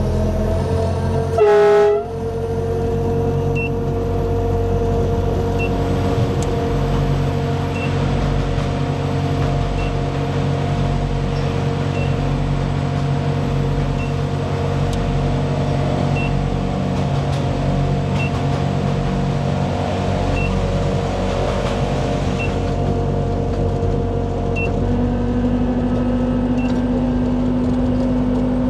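Ride-on miniature locomotive with hydraulic drive: one short horn blast about a second and a half in, then its engine and hydraulic drive running steadily as it sets off. A faint short high beep repeats about every two seconds.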